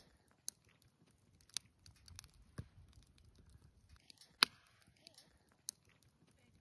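Wood fire crackling in a fire pit: scattered, irregular sharp pops over a faint hiss, the loudest about four and a half seconds in.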